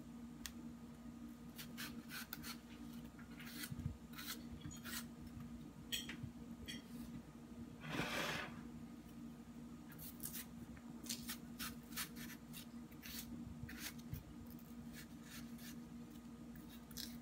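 Kitchen knife slicing through soft ripe melon flesh and scraping along the rind, a run of small, irregular clicks and scrapes. A brief louder rustle about eight seconds in, over a steady low hum.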